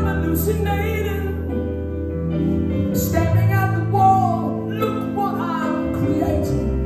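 Live band music: a male singer sings phrases over steady held chords and electric guitar.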